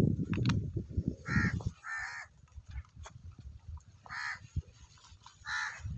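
A crow cawing: four short calls spread over a few seconds, the first two close together. A low rumble fills the first couple of seconds.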